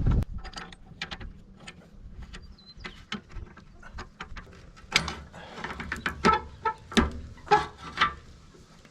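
Steel parts and tools clinking and knocking at irregular intervals, with a handful of louder metal clanks that ring briefly about five to eight seconds in.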